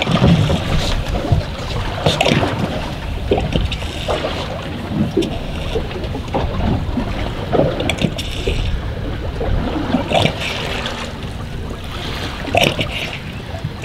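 Water slapping irregularly against the hull of a drifting fishing boat, over a steady rush of wind and sea.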